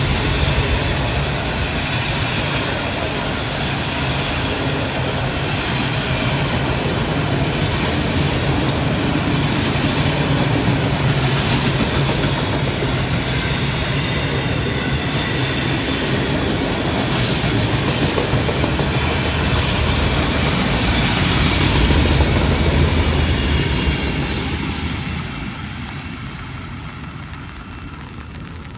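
Loaded autorack freight cars rolling past close by: steel wheels rumbling and clattering over the rail joints, with faint high wheel squeal. About 24 seconds in the last car passes and the sound falls away.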